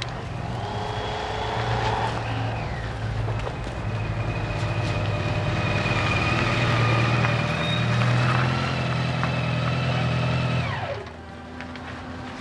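A motor vehicle's engine running steadily with a high whine over its hum, then shut off near the end, its pitch falling away as it stops.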